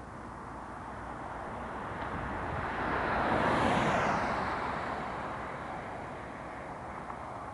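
Single-engine propeller airplane passing overhead: a steady drone that swells to its loudest about three and a half seconds in, then drops in pitch and fades as it moves away.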